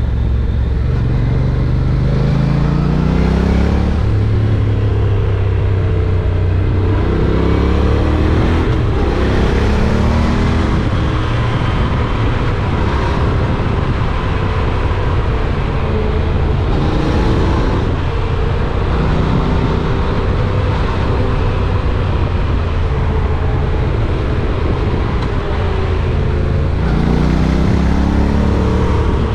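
Honda NC750X's parallel-twin engine running under way, accelerating several times with its pitch climbing: near the start, about eight seconds in, and near the end.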